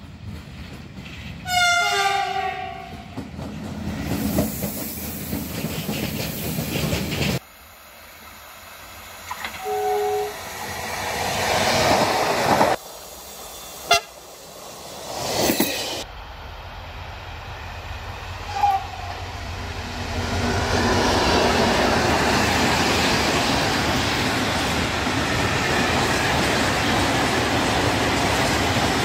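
Electric train horns sounding two tones together: one blast about 2 s in that rises into its pitch, and a shorter blast about 10 s in, between stretches of approaching-train noise that cut off abruptly. From about 20 s on, the steady rumble and wheel clatter of a long freight train of open wagons passing close by.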